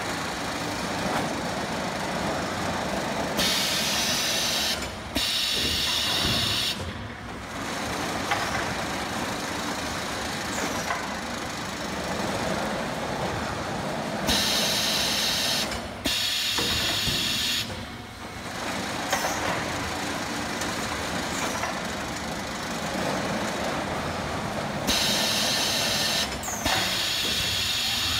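Palletizing robot cell at work: a steady machinery drone, broken three times, about eleven seconds apart, by paired bursts of compressed-air hissing, each a second or two long.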